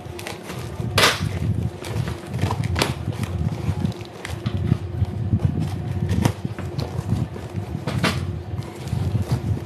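Cardboard parcel being cut open with scissors and handled: continuous scraping and rustling of cardboard, with several sharp rips as the tape and flaps are torn open, about a second in, near three seconds, and around six and eight seconds.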